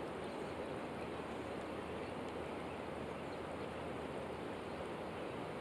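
Steady wash of a river's current flowing and rippling.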